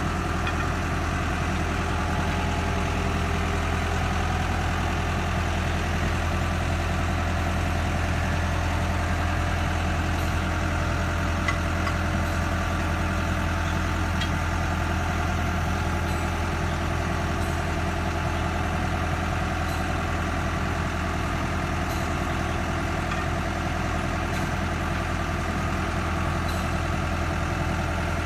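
Forklift engine running steadily near idle while it powers the hydraulic paper roll clamp, which turns its gripped load.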